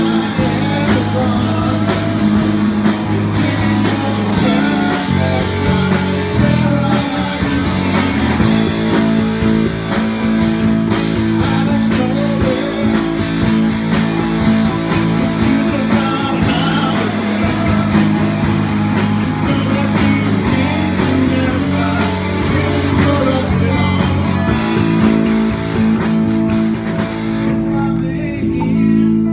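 Live rock band rehearsal: electric bass and electric guitars playing through amplifiers over a steady beat, with a male voice singing into the microphone. The bright top of the sound thins out shortly before the end.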